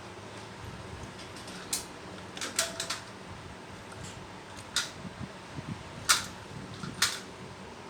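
Scattered sharp metal clicks and knocks, about six spread unevenly over several seconds, as jackhammer parts are handled and fitted during repair work. A faint steady hum lies underneath.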